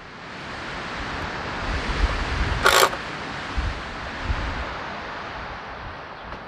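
Strong wind buffeting the microphone: a steady rushing noise with gusting low rumble. About two and a half seconds in there is one brief sharp rattle.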